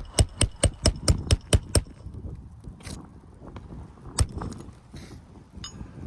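Hammer driving a roofing nail into an asphalt shingle: nine quick, ringing strikes in under two seconds, then one more strike about four seconds in.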